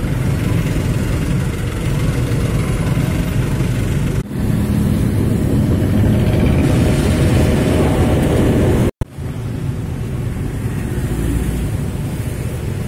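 Steady road-traffic and engine noise from moving through traffic, mostly a low rumble. The sound dips briefly about four seconds in and cuts out for an instant about nine seconds in.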